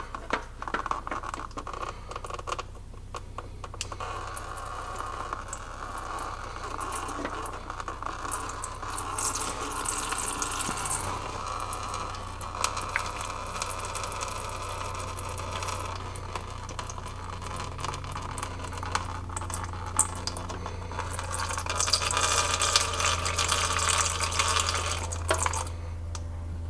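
Motor oil pouring in a steady splashing stream into a container, growing louder for a while near the end.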